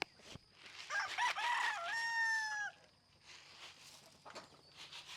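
Rooster crowing once, about a second in: one crow of nearly two seconds, its last note held and then dropping off.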